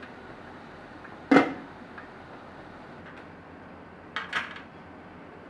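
Metal clanks from a steamer pot and its lid being handled: one sharp clank about a second in, then two lighter clinks near the end.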